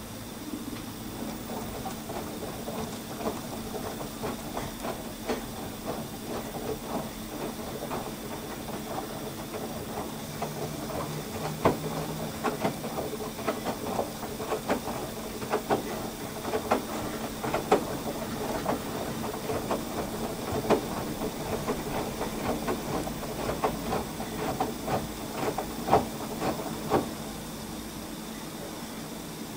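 LG VC2 direct-drive front-loading washer-dryer tumbling a heavy, waterlogged duvet during the first rinse: rinse water sloshing and splashing with irregular wet thumps as the drum turns, under a steady hum. The tumbling stops near the end.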